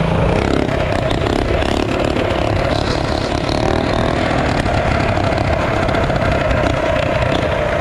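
Mini bike's small engine running at high revs under way, holding a steady pitch.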